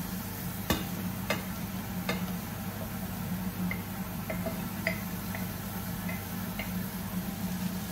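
Kitchen range hood fan running with a steady hum, with a few sharp clicks and lighter taps of utensils: three louder ones in the first two seconds, then softer ticks.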